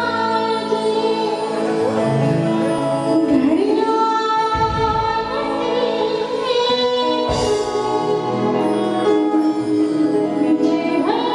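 A woman singing a melody into a microphone, with long held and gliding notes, backed by a band on drums, keyboards and guitar.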